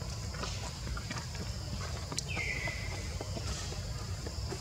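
Outdoor ambience: a steady insect drone with light scattered clicks, and about two seconds in a single high whistled call that drops quickly in pitch, then holds level for about a second.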